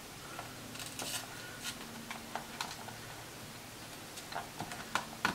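Scattered small clicks and taps of hands handling plastic and wiring: a flat-screen TV speaker being pushed onto its mounting post and its lead worked into place, with a few sharper clicks near the end.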